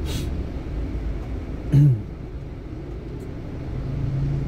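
Steady low rumble of a car's engine and road noise heard from inside the cabin, creeping in slow traffic. About two seconds in comes a short, loud vocal sound with a falling pitch, and near the end a low hummed note.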